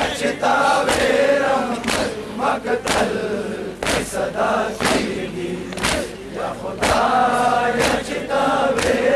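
A crowd of men chanting a Pashto mourning lament in unison, with matam chest-beating striking together about once a second.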